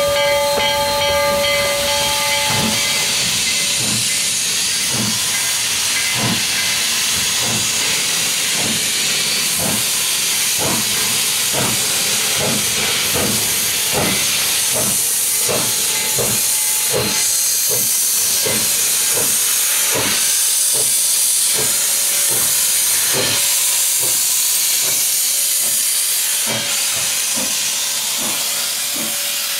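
A steam whistle blows a steady blast that ends about two seconds in. Then a narrow-gauge 2-8-2 steam locomotive works off from a stand: sharp exhaust chuffs, about one a second, quickening to about two a second, over a steady hiss of steam from the cylinder cocks.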